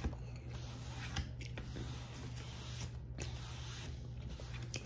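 Faint chewing with a few soft mouth clicks over a steady low hum of room noise.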